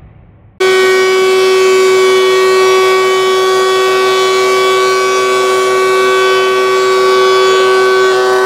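DeWalt two-speed benchtop thickness planer running, a loud steady high-pitched whine made of several tones, cutting in abruptly about half a second in.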